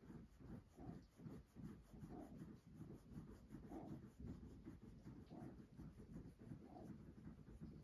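Faint, rapid scratchy rustling of a hand rubbing a dog's head fur close to the microphone.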